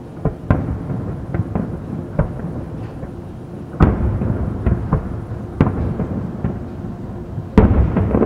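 Aerial fireworks shells bursting: about a dozen sharp bangs over a rolling, thunder-like rumble of echoes. The two loudest bangs come about four seconds in and near the end.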